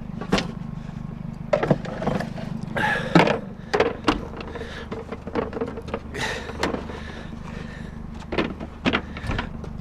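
A string of short knocks and clunks, as of junk being handled and set down, over the steady low hum of an idling vehicle engine.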